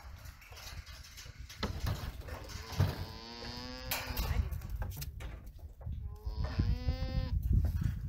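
Alpaca humming: two drawn-out, even-pitched hums, one about three seconds in and another about six seconds in, each lasting over a second. The hum is a sign that the alpaca is anxious and concerned.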